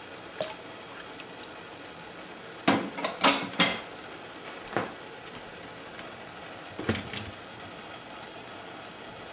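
Water boiling steadily in a steel saucepan as snow peas blanch in a wire-mesh strainer. Sharp metal clanks of the strainer against the pot: a cluster of loud ones about three seconds in, and single ones near five and seven seconds.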